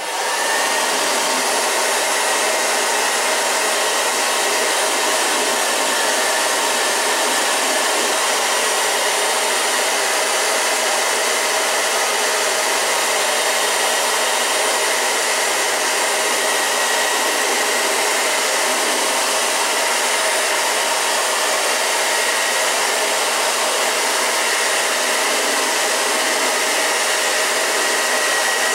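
Handheld hair dryer switching on and running steadily, blowing hot air onto a screen-repair patch to activate its heat-sensitive adhesive. A faint steady high whine rides over the rush of air.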